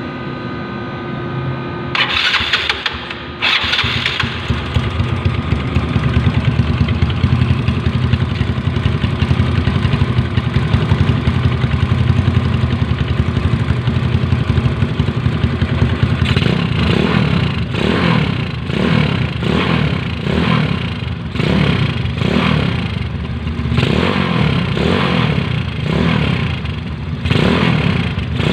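Yamaha Mio Sporty scooter's single-cylinder engine running through a JVT V3 aftermarket exhaust. After two short loud bursts a few seconds in, it runs steadily at idle. Through the second half it is blipped over and over, about once a second.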